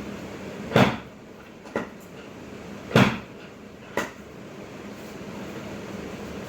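Four sharp knocks from chiropractic adjustments: two loud ones about two seconds apart, each followed a second later by a softer one, over a steady background hum.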